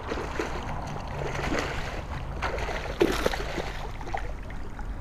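A hooked tarpon thrashing and splashing at the water's surface in short irregular bursts, with a sudden louder splash about three seconds in.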